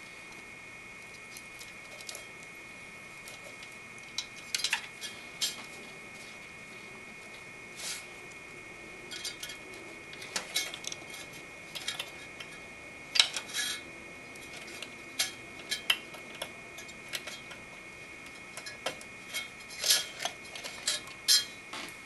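Light plastic clicks and rattles of a CPU fan's cable and connector being handled and plugged in. They come in scattered bursts, few at first and denser in the second half, over a faint steady high whine.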